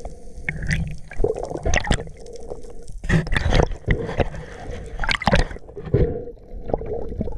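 Water gurgling and sloshing, with irregular splashes and knocks, the loudest about three and five seconds in, over a faint steady hum.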